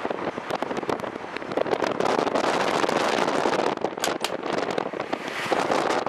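A moving car's road and wind noise, heard from inside the cabin as it crosses a steel truss bridge: a steady rush full of dense, irregular crackling.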